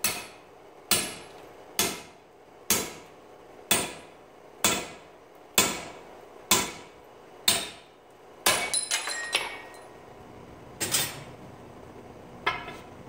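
Hand hammer driving a drift through the punched hole in a hot 1-inch square steel bar on an anvil, opening it out to half an inch. Nine even blows come about a second apart, then a quick rattle of lighter clinks, then two more single knocks.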